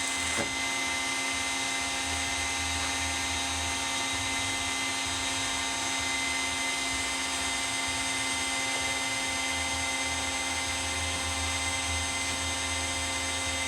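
Wet/dry shop vac motor running steadily as a makeshift welding fume extractor: a constant high whine over a broad rushing hiss, described as a little loud.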